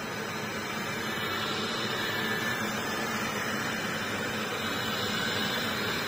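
ILIFE T20s robot vacuum running: a steady whirring hiss as it drives along the floor.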